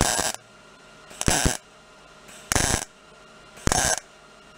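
MIG welder arcing in four short welds, each under half a second and about a second apart: stitch-welding filler onto a torn motorcycle headlight bucket to build up missing metal.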